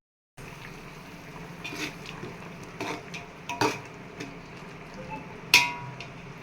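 A metal spoon or ladle clinking against a cooking pot a few times, with the sharpest knock about five and a half seconds in, over a steady hiss, as coconut milk is heated toward the boil. A brief silence at the very start.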